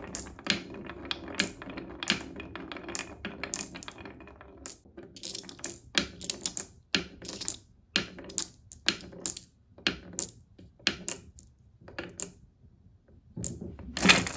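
Glass marbles clicking and tapping against a wooden marble run: sharp, irregular clicks a few per second, with a short lull near the end.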